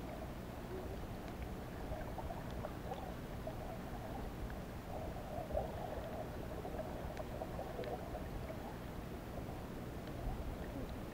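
Muffled underwater ambience heard through a submerged camera: a steady low rumble of moving water with shifting burbling and a few faint scattered clicks.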